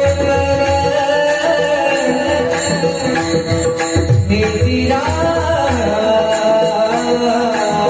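Indian classical-style music: a steady drone of held notes with low hand-drum strokes under it, and a melody that glides and bends in pitch from about halfway through.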